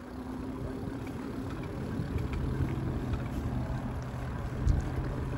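Electric bike under way on pavement: a steady low hub-motor hum over tyre and wind noise.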